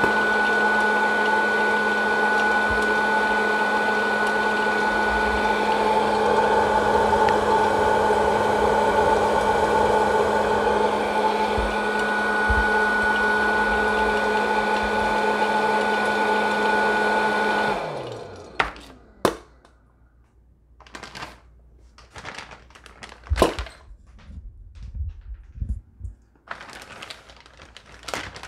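Hot-air popcorn popper's fan running with a steady whir and a high whine, switched off about two-thirds of the way through and winding down with a falling pitch. After that come scattered clicks and knocks.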